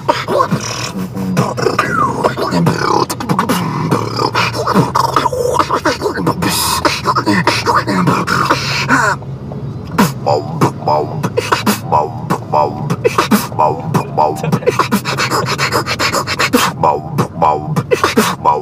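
Beatboxing in a car cabin: a continuous run of rapid percussive mouth sounds, kick- and snare-like hits mixed with pitched vocal sweeps, with the hissing high end cutting out briefly about nine seconds in.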